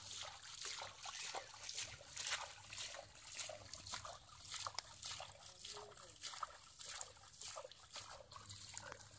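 Hands scooping and splashing in shallow muddy water: a quick, irregular run of wet sloshes and trickles as the water is bailed out by hand to get at the fish.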